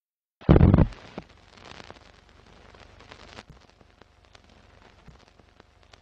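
Intro sound effects for an animated film-countdown leader: a heavy low thump about half a second in, then a faint crackle with scattered clicks, like old film crackle.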